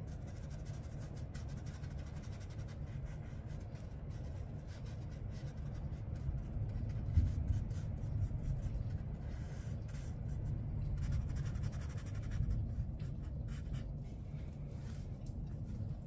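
Flat watercolor brush stroking and dabbing paint onto paper in light, scratchy strokes, over a low steady rumble, with one brief knock about seven seconds in.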